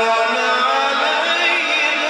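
A man's solo voice reciting the Quran in the drawn-out, melodic tajweed style, a long held note whose pitch climbs slowly through the middle.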